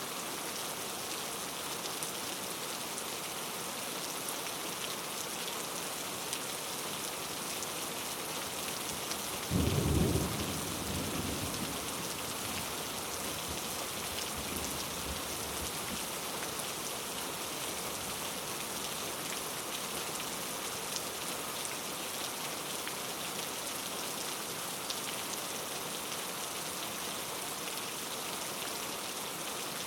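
Steady rain falling and pattering on a surface, with a single clap of thunder about ten seconds in that rumbles off over a few seconds.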